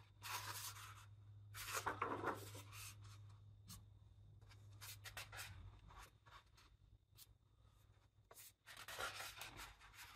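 Pages of a large hardcover art book being turned by hand: paper swishing and rustling in four separate sweeps, over a faint steady hum.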